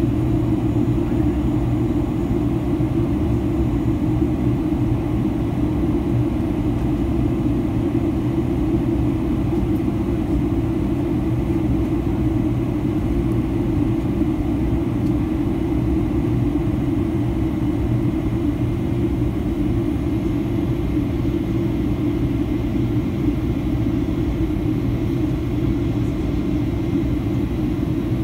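Jet airliner cabin noise during descent: a steady low rumble of engines and airflow, with a faint steady whine above it.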